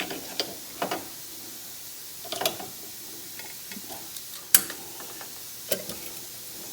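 Scattered sharp metallic clicks and knocks, like tools and a steel workpiece being handled, about five in all with the loudest about four and a half seconds in, over a faint steady hum.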